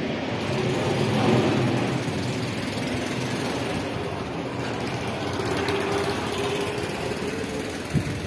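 A motor vehicle's engine running steadily, its hum drifting slowly in pitch.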